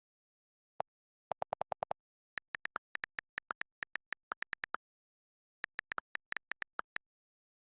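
Runs of very short electronic blips, several a second, in irregular groups with dead silence between.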